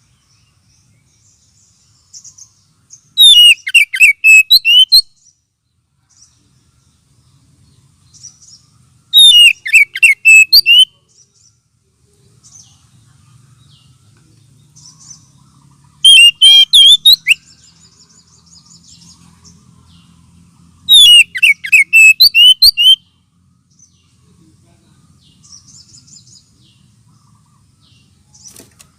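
Oriental magpie-robin (kacer) lure song: four loud bursts of rapid, varied whistled phrases, each about two seconds long and coming roughly every six seconds, with faint chirps between them. This is a lure call meant to draw out and excite kacer birds.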